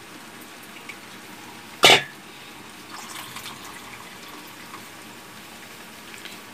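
Wet grated coconut being poured into a steel strainer and pressed by hand to squeeze out coconut milk, faint and wet. One short, loud sound cuts in about two seconds in.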